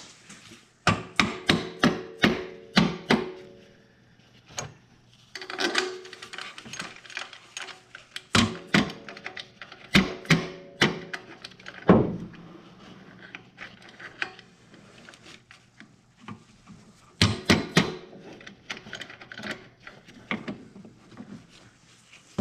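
Small mallet striking a new upper torque strut motor mount to pop it into its bracket: groups of quick knocks, several with a short metallic ring, and pauses between groups.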